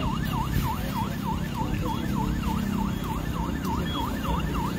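A siren in its fast yelp pattern, the pitch rising and falling about four times a second, over low rumbling street noise.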